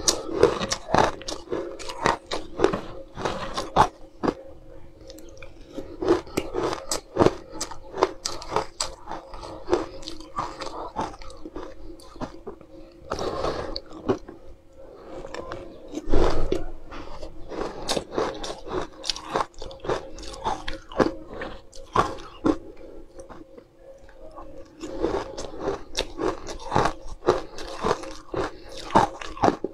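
Close-up crunching and chewing of crushed ice with green flecks: a dense run of sharp, crisp crunches, with a louder bite about halfway through. A faint steady hum runs underneath.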